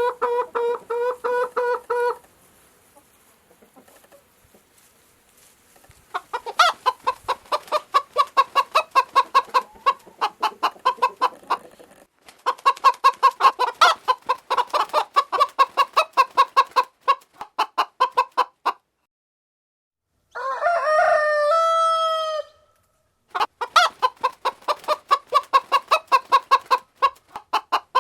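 Chickens clucking in long runs of quick repeated calls, about four or five a second, with a pause between runs. A rooster crows once about two-thirds of the way through.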